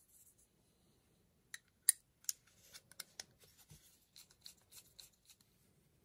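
Small metallic clicks and faint ticks of an Urban EDC F5.5 titanium folding knife being reassembled by hand, handle scale and screws going back on. A few sharp clicks come about a second and a half in, then a string of light ticks.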